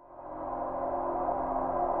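Ambient music drone fading in from silence over about a second, then holding: a sustained gong-like wash of many steady tones with a low rumble beneath.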